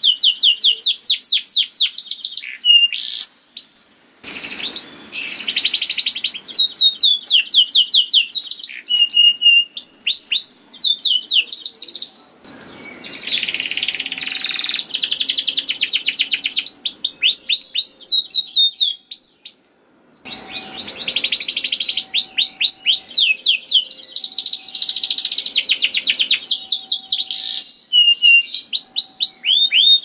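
Domestic canary singing: long, fast phrases of rapidly repeated trill notes and rolls, breaking off briefly three times.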